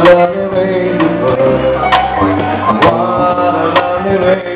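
Live small jazz band with drum kit, keyboard and guitar playing a slow instrumental passage, with sharp accents roughly once a second.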